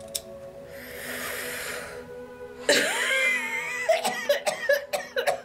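A person coughing in a wheezy fit: a loud, strained first cough, then quick repeated coughs, over quiet background music.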